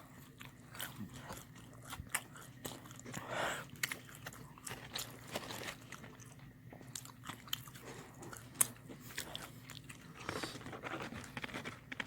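Close-miked eating of breaded fried chicken: biting and chewing, with irregular crisp crunches and clicks.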